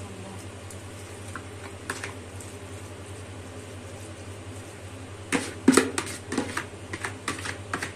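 A steady low hum, then from about five seconds in a run of sharp clicks and light knocks. They come from a plastic bowl being tipped against a glass baking dish while the last of a moist food mixture is scraped out of it by hand.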